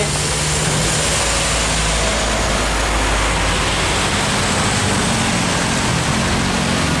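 Heavy diesel truck engine running under load on a steep uphill climb: a loud, steady drone with a rushing noise over it.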